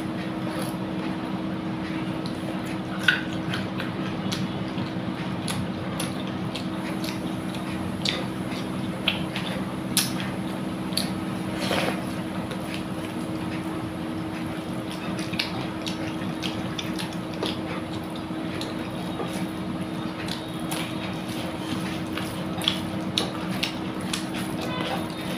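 Wet eating sounds of rice mixed with dal and fried pointed gourd: chewing and mouth smacks with scattered short clicks, over a steady low hum.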